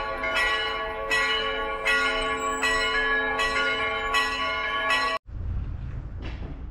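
Church bells ringing, a new strike about every three-quarters of a second over long overlapping ringing tones. The ringing cuts off abruptly about five seconds in, leaving a low rumble.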